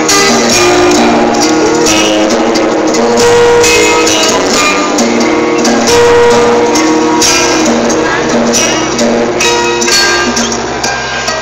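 Loud live heavy metal music from a band on stage, with held chords that change about every second over dense cymbal-like hits.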